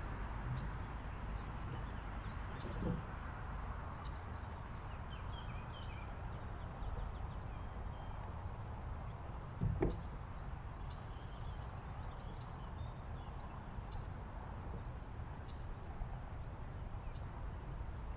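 Outdoor ambience: a steady low rumble, with faint bird chirps and two short dull knocks, one about three seconds in and a louder one near ten seconds.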